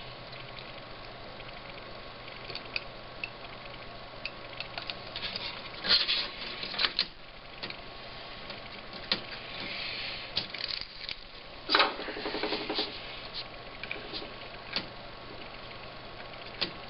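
Irregular clicks, taps and knocks of small tools and parts being handled on a repair bench, with a louder clatter about 6 s in and the loudest knock about 12 s in. A faint steady hum runs underneath.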